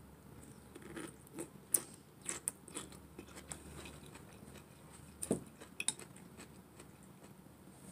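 Close-miked eating sounds of instant noodles: scattered wet mouth clicks and chewing, with a few sharper taps. The strongest click comes just past the five-second mark.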